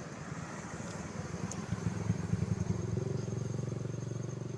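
A road vehicle's engine running close by, growing louder over the first three seconds and then holding a steadier note.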